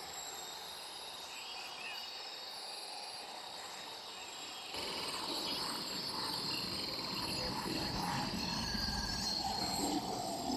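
Jungle ambience of insects chirping steadily, cricket-like. About halfway through, a louder, fuller layer of noise joins in.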